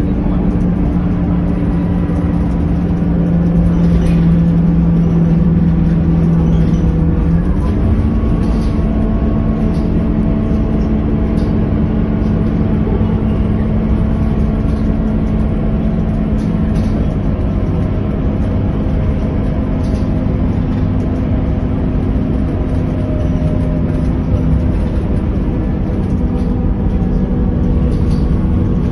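Scania K230UB city bus's 9-litre five-cylinder diesel engine running as the bus drives along, heard from inside the passenger cabin over road and body noise. The engine note steps up in pitch about seven seconds in.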